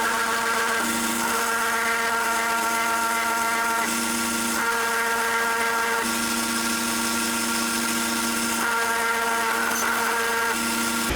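Small sander with a 1-inch wheel running steadily as a knife's steel is ground on it. Its tone shifts back and forth several times.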